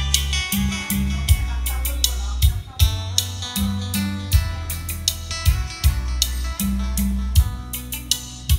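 A song with guitar, bass and a steady drum beat, played through a karaoke speaker system fitted with Bose SA7 treble horn tweeters during a listening test of the tweeters.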